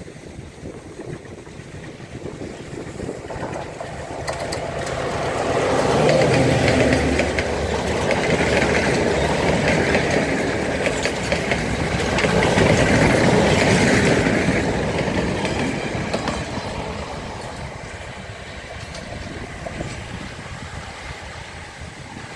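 Sri Lanka Railways Class M2 (EMD G12) diesel locomotive and its mixed train passing close by. The rumble of the engine and the rolling wheels builds as it approaches, is loudest as the locomotive and coaches go past, and then fades as the train moves away.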